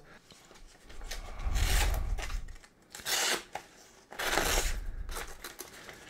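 Paper being sliced with the serrated blade of a Leatherman Super Tool 300 multitool: two longer cutting strokes, about a second and a half in and about four seconds in, with a brief rustle of paper between.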